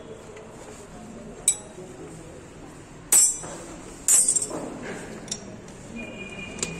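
Metal clinks of hand tools against a diesel engine's fuel-line fittings: a sharp clink about a second and a half in, two louder ones a little after three and four seconds in, and smaller taps near the end.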